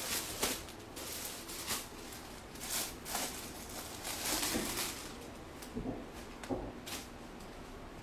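Silk sarees and their clear plastic packets being handled, giving a run of short rustles with a longer crinkle about four seconds in.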